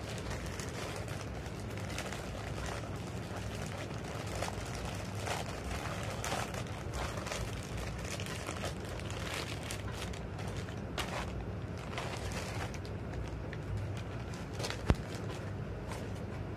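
Paper and plastic packaging rustling and crinkling in irregular bursts as a small parcel is handled and opened by hand, with one sharp click about fifteen seconds in, over a steady low hum.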